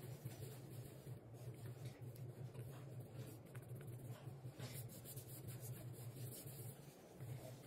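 Terry-cloth towel wiping a glossy sink basin: faint, irregular rubbing strokes over a low steady hum.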